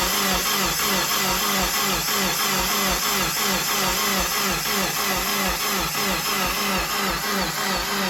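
2017 Subaru WRX's rebuilt engine being cranked over on the starter without firing, an even, rhythmic chug of about three pulses a second. The fuel pump is not yet connected, so it is turning over only to push oil through the freshly rebuilt engine.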